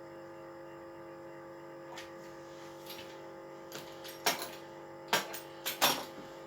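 A few light knocks and taps from handling things on a kitchen countertop, clustered in the second half, over a steady electrical hum.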